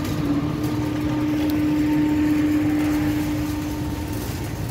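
Metal shopping cart rolling over parking-lot asphalt: a continuous low rattle from its wheels, with a steady hum through most of it that fades out near the end.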